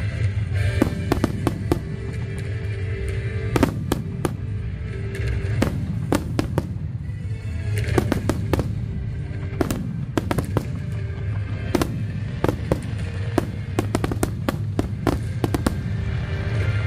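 Aerial fireworks shells bursting in rapid succession: many sharp bangs and cracks, thickest in the second half, over a steady low rumble, with music playing underneath.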